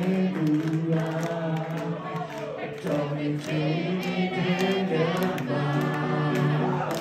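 Live song sung by many voices together, a male singer at the microphone with the crowd singing along, over acoustic guitar.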